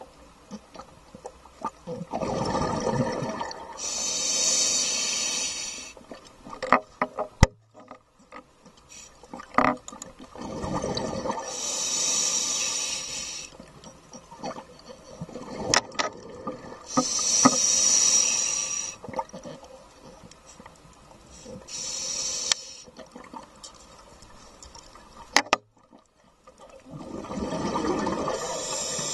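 A scuba diver breathing through a regulator underwater: a rushing breath and a hiss with each cycle, repeating about every six seconds as exhaled bubbles stream away. A few sharp clicks fall between the breaths.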